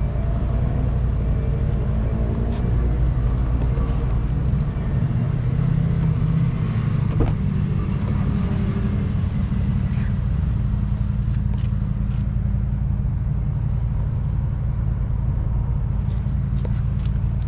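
Steady low rumble of an idling car engine. A sharp click comes about seven seconds in as the front door handle is pulled, and a few lighter clicks follow near the end.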